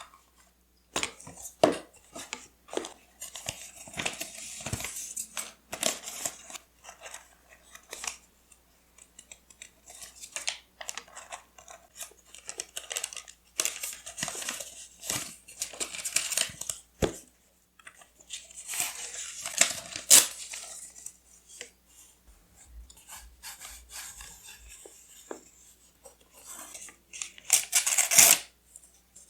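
Close-up paper-craft sounds: washi tape and paper being torn, cut and rubbed down, in short rustling stretches broken by light taps and clicks.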